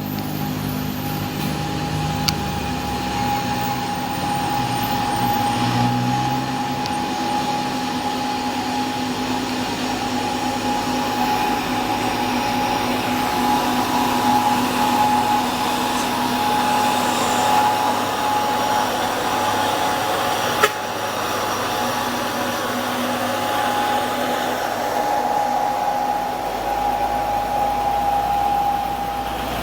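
A truck engine running steadily with a constant whine, and two sharp clicks, one a couple of seconds in and one about two-thirds of the way through.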